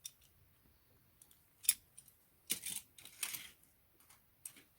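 Die-cast metal toy cars clicking and clattering as they are handled and set down: a sharp click about a second and a half in, then a couple of short rattly clatters around three seconds in.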